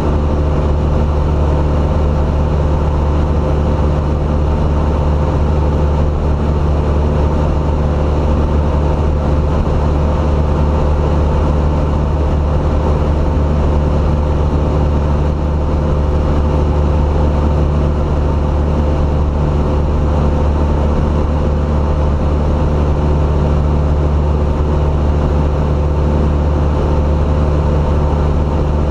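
Light single-engine aircraft's piston engine and propeller running steadily in flight, heard from inside the cabin.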